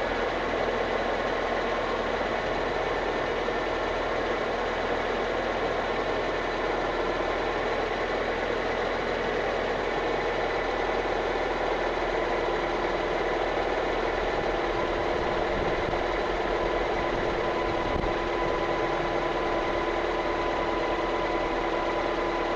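Nissan KA24E 2.4-litre four-cylinder engine idling steadily after a timing chain tensioner and guide repair, with no chain rattle, which the owner takes for a successful fix. A faint steady whine comes in partway through.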